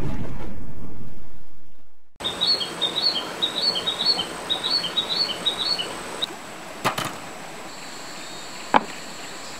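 A whoosh fades out over the first two seconds. After a brief silence, a small bird chirps in quick repeated notes for about four seconds over a steady outdoor hiss. Near the end come two sharp knocks, about two seconds apart.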